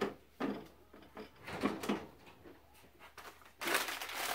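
Short plastic clunks and taps as a blender jar is handled. About three and a half seconds in, a plastic bag starts rustling as peanuts are tipped from it into the jar.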